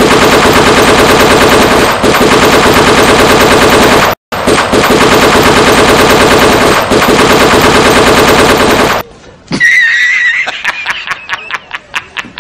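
Loud machine-gun sound effect firing in rapid, even bursts, with a brief break about four seconds in, stopping about nine seconds in. It is followed by a short wavering high tone and a quick run of separate sharp taps.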